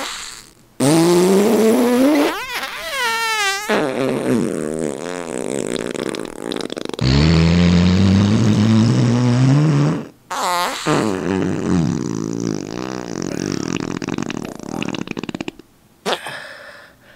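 A long run of loud comic fart sound effects. The first rises and wobbles in pitch, a long low one starts about seven seconds in, and a short burst follows before they trail off into sputters.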